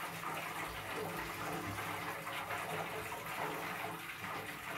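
A steady rushing noise, like running water or a fan, with a faint low hum underneath.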